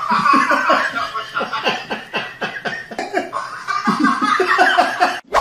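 People laughing hard in quick repeated bursts, which cut off abruptly near the end.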